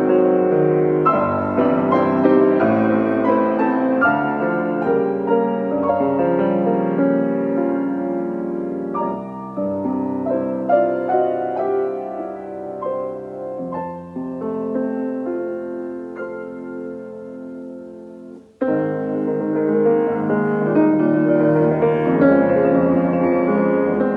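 Solo grand piano playing in full chords, growing softer through the middle, then breaking off for a moment about eighteen seconds in and coming back at full volume.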